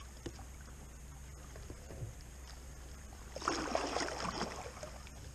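Kayak paddle splashing in river water, one noisy stroke a little past the middle, over a steady low background hum and faint drips and clicks.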